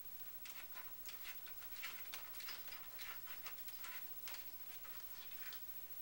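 Savannah cat pawing at a door, his claws making a faint, irregular run of small clicks and scrapes against the panel.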